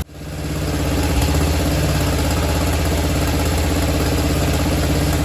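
Engine of a 1999 DR Brush Mower running steadily at idle, just started on starter fluid with its air filter still off. It fades in over about the first second.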